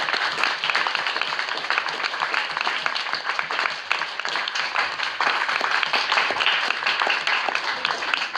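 Audience applauding: many hands clapping together in a dense, steady stream that eases off near the end.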